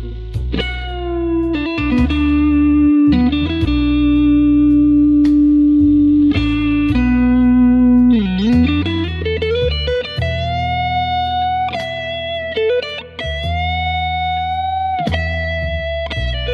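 Electric blues lead on a Fender Stratocaster played through a BOSS GT-100 multi-effects unit set to its COMBO sound: long sustained single notes with string bends and slides, over a low backing line that changes every second or two.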